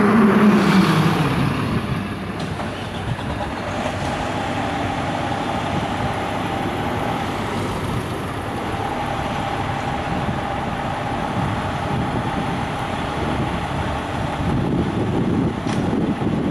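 Road traffic driving past close by. A vehicle goes by at the start with its engine pitch falling as it passes, then a steady rush of passing cars follows, swelling again near the end.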